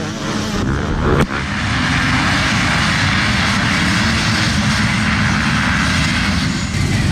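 Dozens of off-road dirt bike engines revving together at a mass race start, a dense, steady drone of many engines as the pack pulls away. A short sharp click sounds just over a second in.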